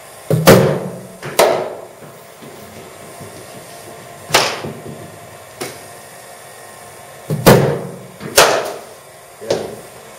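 Sharp knocks of cricket balls in indoor nets: the bowling machine firing balls and the ball striking the bat, about seven knocks, several coming in pairs about a second apart, each with a short echo in the hall.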